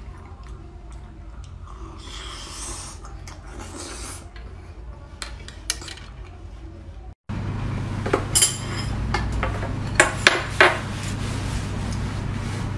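Chopsticks and tableware clicking and scraping against plates as food is handled, with several sharp clicks in the second half. A brief dropout comes about seven seconds in, after which a low hum runs under the clicks.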